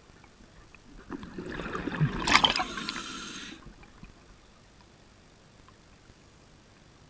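Scuba diver's exhaled bubbles gurgling out of the regulator underwater, one breath starting about a second in and ending after about two and a half seconds.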